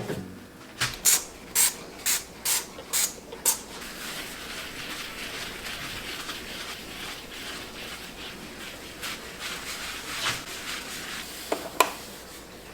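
A trigger spray bottle squirted six times in quick succession, followed by several seconds of a cloth rubbing over a surface. Two light knocks come near the end.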